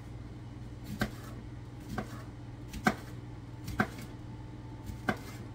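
Kitchen knife cutting through a green bell pepper onto a cutting board: five separate chops, roughly one a second.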